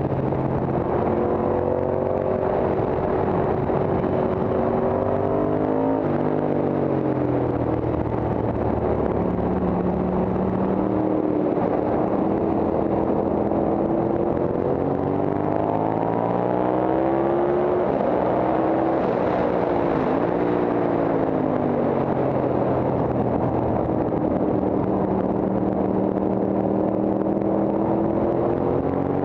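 Moto Guzzi V-twin engine of a racing motorcycle at speed on track, its pitch climbing under acceleration and falling away for corners, with sharp drops about six and twenty seconds in. Wind rush on the onboard microphone runs underneath.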